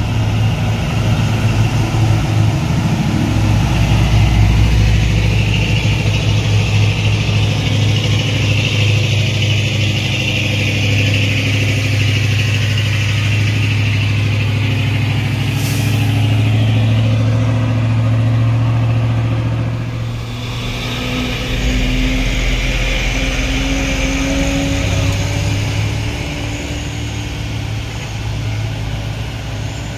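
Heavy diesel truck engines labouring up a steep grade, a steady deep drone. A short hiss comes about sixteen seconds in, and a little after that the engine sound dips and a different engine note takes over.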